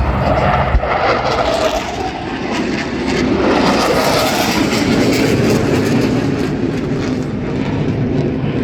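Loud military jet engine noise from a low pass, a rushing roar that swells about three seconds in and stays loud.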